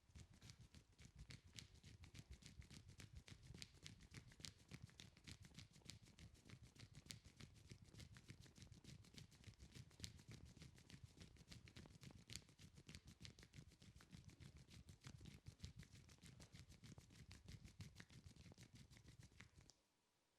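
Hands massaging the neck and shoulders, giving a faint, fast patter of light slaps and taps on skin, several a second, that stops abruptly near the end.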